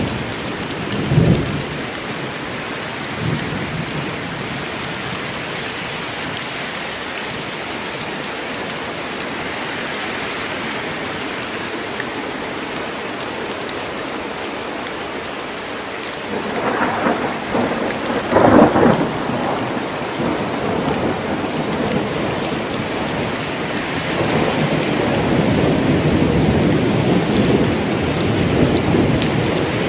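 Steady heavy forest rain during a thunderstorm. Thunder cracks about a second in and twice more a little past halfway, and a long rolling rumble builds near the end.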